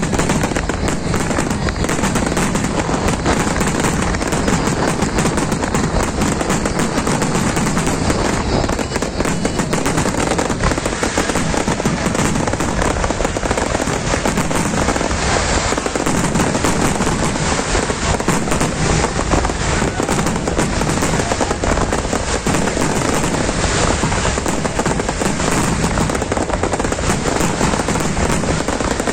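Fireworks display going off without a pause: rapid, overlapping bangs and crackling.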